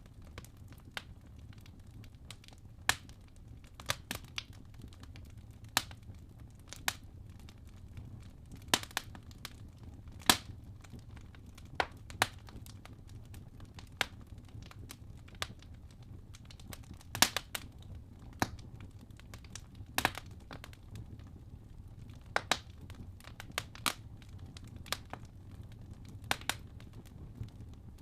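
Wood fire burning in a fireplace: logs crackling with irregular sharp pops and snaps over a low steady rumble of the flames.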